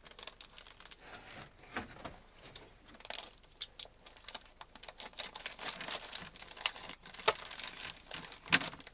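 Plastic cooking bags crinkling and rustling as a hot boil-in-the-bag sausage is worked out of them, with scattered small clicks and a few sharper knocks, the loudest near the end.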